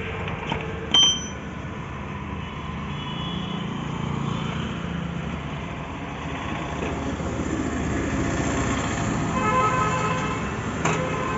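A steady engine drone runs throughout. A sharp metallic clink comes about a second in and another near the end.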